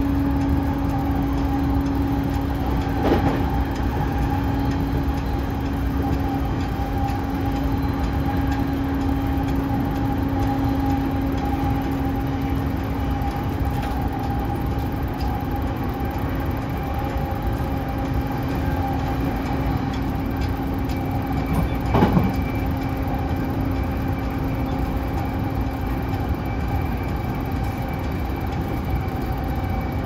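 Faulty ceiling air-conditioning unit of an E233-3000-series commuter car (MoHa E232-3011) giving a steady droning hum with a higher whine over it, against the low rumble of the running train. A knock sounds about three seconds in and a louder one about twenty-two seconds in.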